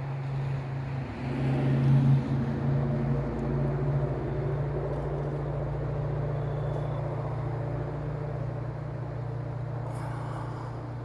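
A vehicle engine running with a steady low hum, swelling to its loudest about two seconds in and then holding steady.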